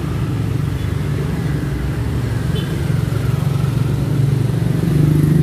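A motor vehicle engine running close by, steady and low-pitched, getting a little louder near the end.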